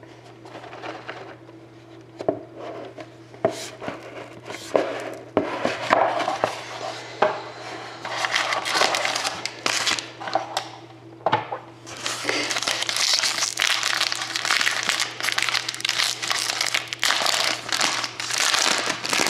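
A cardboard trading-card box being opened and handled, with scattered sharp clicks and scrapes. Past the middle, a foil pack wrapper crinkles steadily as it is torn and peeled off a stack of hockey cards.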